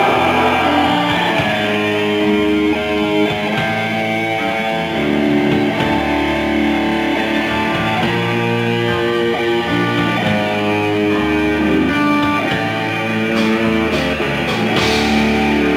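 Live death metal band playing an instrumental passage: electric guitar notes stepping through a melody over bass at a steady loud level, with a few sharp hits near the end.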